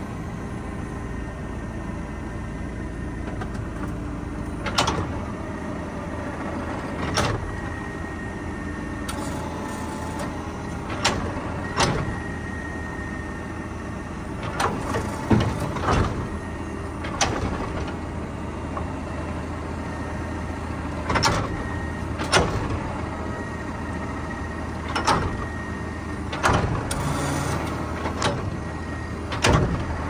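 Tractor engine running steadily under load, heard from inside the cab, with short sharp knocks every second or two.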